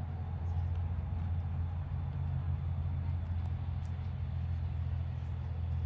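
Steady low hum of an idling engine, with faint light ticks over it.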